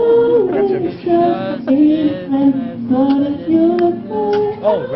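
Live pop singing from a boyband song medley: a voice carrying a melody with long held and sliding notes.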